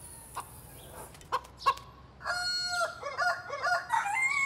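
Rooster clucking in a run of short, wavering calls, then starting a long crow about four seconds in.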